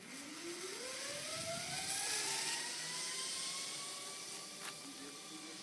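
Zip line trolley running down the steel cable: a whine that climbs steadily in pitch as the rider picks up speed, then levels off, over a hiss.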